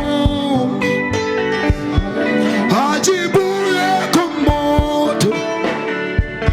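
Live gospel praise-and-worship band music: sustained chords and guitar over a steady drum beat, with bending melodic lines from voices.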